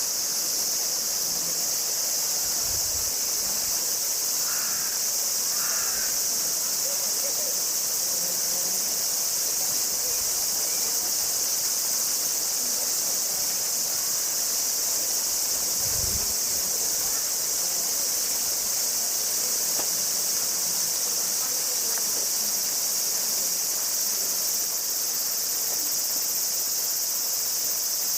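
Chorus of cicadas: a steady, high-pitched drone that holds unbroken throughout.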